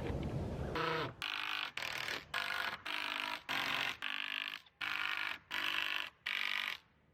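Power drill driving screws down into the roof, its motor whining in about ten short bursts of half a second or so with brief pauses between.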